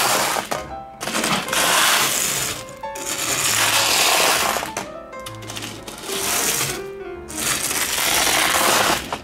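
Small loose stones scraping and grinding as a toy plane is pushed through them by hand, in several strokes of a second or two each. Background music with plucked notes plays underneath.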